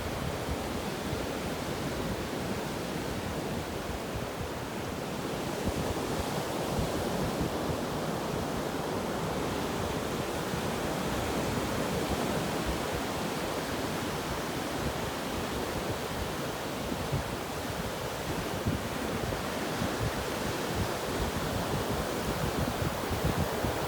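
Ocean surf: waves breaking and washing continuously, swelling a little about six seconds in, with some wind on the microphone.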